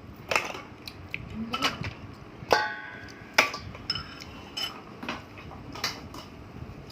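Tableware clattering at a meal: about a dozen irregular clinks and knocks of dishes and utensils, one about two and a half seconds in ringing briefly.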